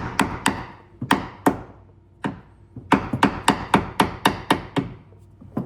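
A hammer striking repeatedly in two runs: a few spaced blows, a short pause, then a quick series of about ten blows at roughly four a second, with one last blow near the end.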